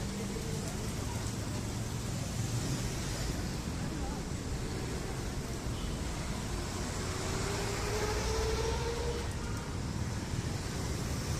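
Steady low background rumble, with a faint rising tone about seven seconds in.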